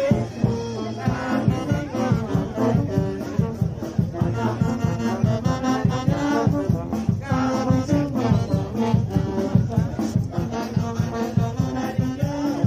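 Brass band playing a lively tune: sousaphones and other brass horns on held notes over a steady, even beat.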